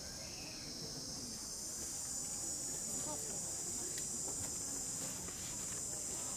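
Steady, high-pitched chorus of insects buzzing.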